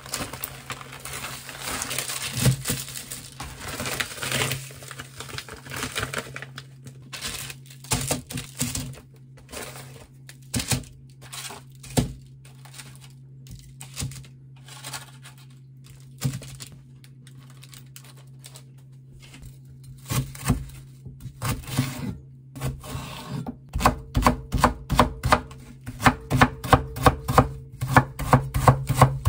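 Kitchen knife chopping on a cutting board: a few scattered cuts at first, then a quick, even run of chops, about four a second, near the end.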